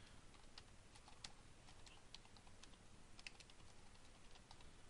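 Faint typing on a computer keyboard: a run of irregular, light keystroke clicks.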